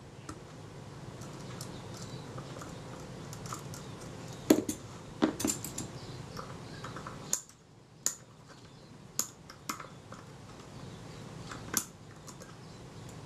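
A small screwdriver working on the metal body of a Kodak Retina II camera, undoing the front door's hinge screws: scattered light metallic clicks and taps over a low scraping handling noise.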